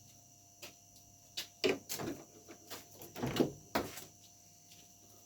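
A series of light knocks and clicks, about eight, from objects being handled and set down, spread over a few seconds.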